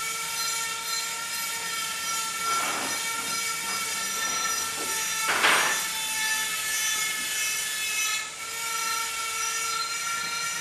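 A rag rubbing and wiping inside a metal rotary-hammer gearbox housing gives two brief rasping swishes, about two and a half and five and a half seconds in. Under it runs a steady background hum made of several pitched tones.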